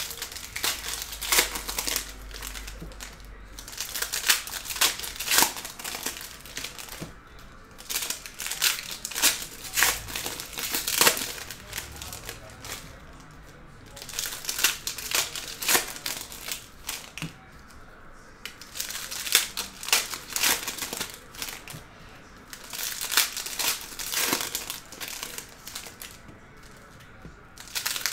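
Foil trading-card pack wrappers crinkling and tearing as packs are ripped open, with cards being handled and flipped through, in bursts of crackling a few seconds apart.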